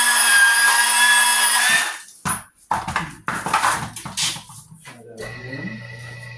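Power-tool motor driving a copper wire stripper, whining steadily for about two seconds and then stopping. Irregular knocks and rattles of the wire and the tool follow. Background music comes in near the end.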